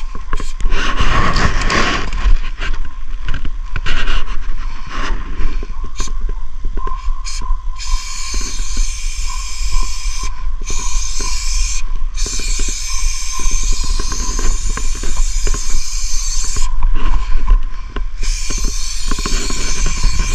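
Aerosol spray paint can hissing in long bursts with short breaks, starting about eight seconds in. Before that, a run of crunching steps and clicks.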